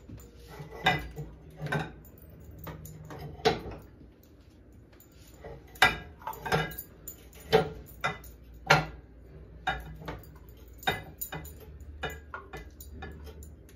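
Metal ladle and serving spoon clinking, knocking and scraping against bowls as pudding and strawberries are scooped, in irregular strokes that are loudest in a run of sharp knocks between about six and nine seconds in.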